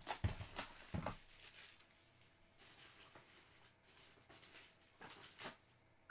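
Faint rustling and light clicks of hands handling a cardboard trading-card box, with a cluster of louder clicks in the first second and a few more around five seconds in.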